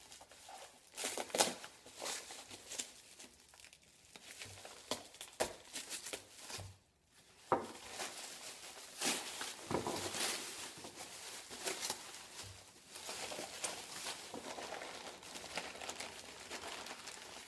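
Packaging crinkling and rustling as machined parts are unwrapped and handled, with scattered small clicks and knocks and a brief pause about seven seconds in.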